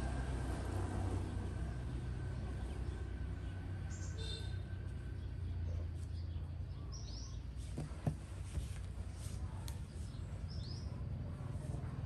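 A few short, high bird chirps scattered over a steady low background rumble, with one sharp click about eight seconds in.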